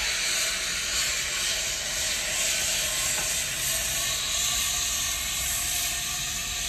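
Fire extinguisher discharging in a steady hiss as a white cloud is sprayed onto a boat fire.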